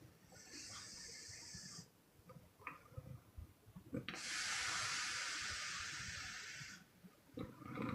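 A sleeping woman's exhale snoring, breathing out in airy puffs through the mouth: a short, fainter puff near the start and a longer, louder one of nearly three seconds in the middle. A low snore starts just before the end.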